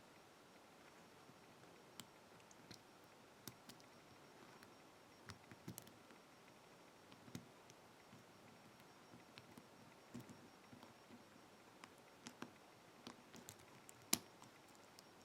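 Faint, irregular clicks of a hook pick working the pins of a pin-tumbler lock under tension, in a false set while searching for spool pins; the sharpest click comes near the end.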